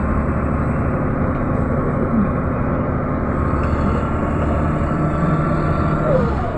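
Mercedes-Benz O405 city bus running along the street, heard from inside the passenger cabin: a steady engine rumble with road noise, and the engine note falling near the end.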